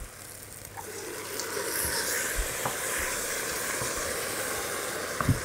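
Tomato paste and peeled tomatoes sizzling in a pot of sautéed vegetables as they are stirred with a wooden spoon. The hiss builds about a second in and holds steady, with a few light knocks and a slightly louder one near the end.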